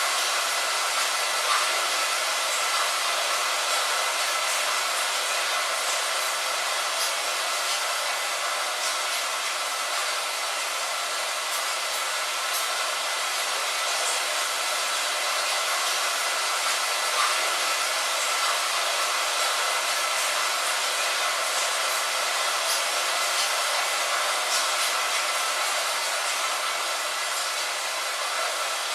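Steady hiss of rain, thin with no deep rumble, with faint scattered ticks of single drops.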